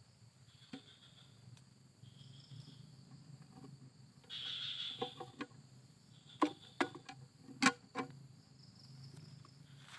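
Plastic insect box lid being handled, giving about six sharp clicks and knocks in the second half, over faint insects chirping in the background.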